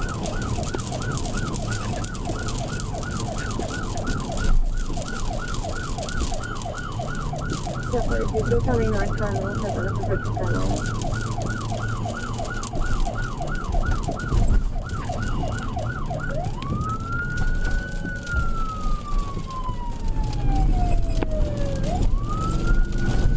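Police patrol car siren in a fast yelp, switching about 16 seconds in to a slow wail that rises, falls slowly and rises again, over the cruiser's engine and road rumble during a high-speed pursuit.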